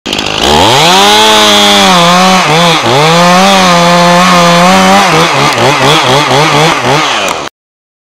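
Stihl chainsaw revving up about half a second in and running at full throttle as it cuts into a tree trunk, with a brief dip in revs near three seconds. In the last two seconds the revs rise and fall several times in quick succession, and the sound then cuts off suddenly.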